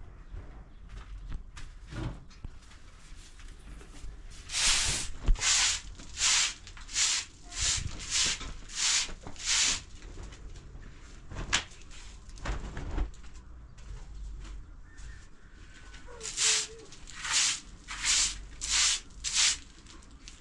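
Rhythmic scraping strokes, about one and a half a second, in two runs: eight strokes, then after a pause five more. A few single knocks fall between the runs.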